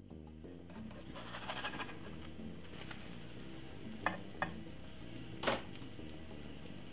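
Pancake frying in a non-stick pan with a low sizzle, and a slotted spatula clicking against the pan twice about four seconds in, then once more, louder, about a second later.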